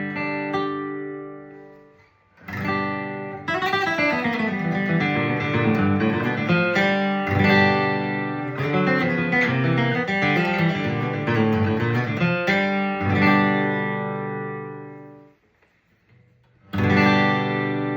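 Steel-string acoustic guitar flatpicked bluegrass-style. A chord rings and fades out about two seconds in, then a quick passage of picked single notes and strums plays. It stops for about a second near the end, and a fresh strum starts.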